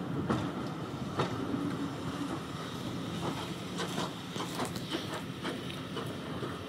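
English Electric Class 20 diesel locomotive engine running steadily as the locomotive approaches slowly, with clicks and knocks from its wheels on the track that come more often in the second half.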